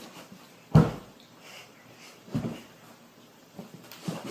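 Two short, dull thumps about a second and a half apart, with quiet room sound between them.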